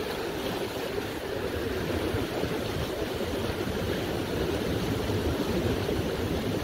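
Fast river water rushing steadily over rocks in white-water rapids.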